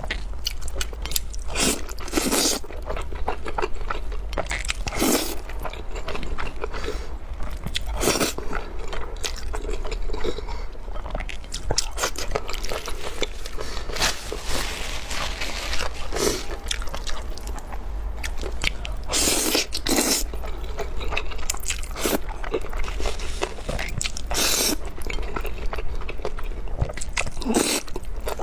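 Close-miked noodle eating: long strands slurped in every few seconds, with wet chewing and small mouth sounds in between.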